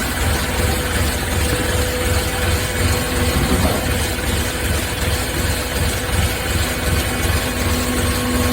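Hydraulic baler's motor and hydraulic pump running steadily with a low rumble and faint steady whine tones.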